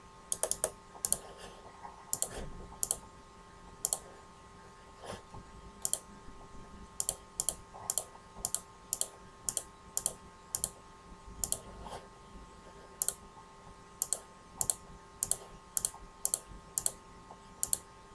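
Computer mouse button clicks, sharp and irregular, often in quick pairs, as parts and labels are moved and placed in a schematic editor.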